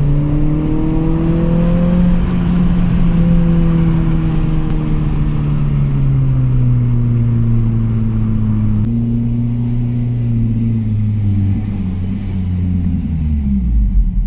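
Honda Civic Type R FN2's K20 four-cylinder engine running through a loud aftermarket Invidia exhaust, heard from inside the cabin. Its note holds high for a couple of seconds, then falls steadily in pitch as the revs drop, with a small jump up about nine seconds in before it keeps falling.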